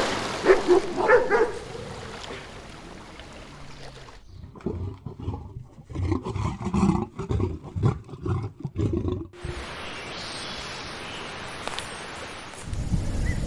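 A series of animal calls: a few short barking calls at the start, then a run of low, rough grunting calls lasting about five seconds, followed by a steady hiss.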